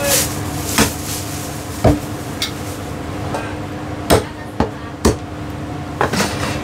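A heavy Chinese cleaver chopping a whole chicken on a thick round wooden chopping block: a series of about eight sharp chops at uneven intervals.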